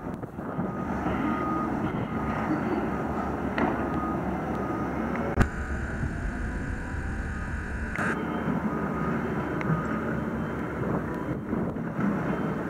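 Demolition plant, a tracked excavator, running steadily with a reversing alarm beeping on and off. There is one sharp knock about five seconds in.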